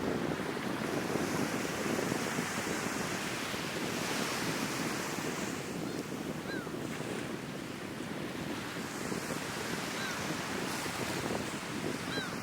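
Sea waves washing onto the shore in a steady, surging rush, with wind buffeting the microphone. Three faint, short bird calls come from about halfway through onward.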